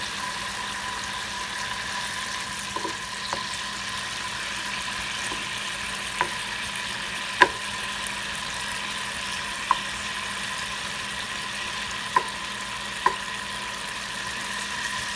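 Tofu cubes sizzling in soy sauce in a nonstick frying pan, a steady hiss with a thin steady whine under it. A wooden spoon turning the pieces knocks sharply against the pan about five times in the second half.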